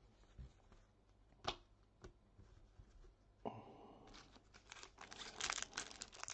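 A few light taps, then from about three and a half seconds in a trading-card pack wrapper being torn open and crinkled, a dense crackle that grows louder.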